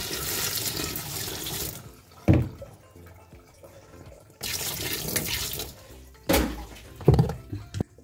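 A stream of water splashing onto the plastic pulsator plate in a washing machine tub, in two spells, the first about two seconds long and the second, about four seconds in, about a second long. A few sharp knocks come between and after the spells.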